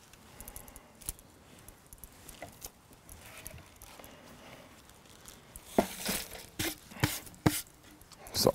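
Charred outer leaves of an ember-roasted red cabbage crackling faintly as they are peeled off. This is followed, in the second half, by a quick run of sharp knocks and clatters of things set down and handled on a wooden worktop.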